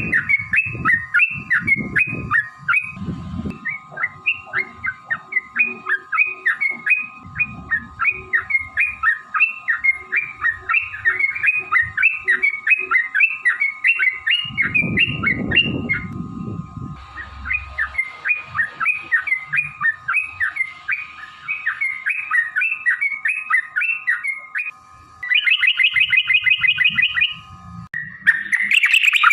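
Yellow-vented bulbul (trucukan) calling in a long, fast run of repeated chirping notes, about three a second. Near the end it breaks into a quicker rolling trill.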